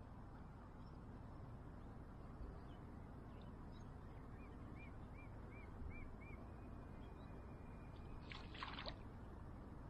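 Faint steady outdoor noise of wind and flowing shallow water, with six short high chirps evenly spaced about halfway through and a held high tone after them. Near the end comes a brief splashing, as a hooked fish breaks the surface.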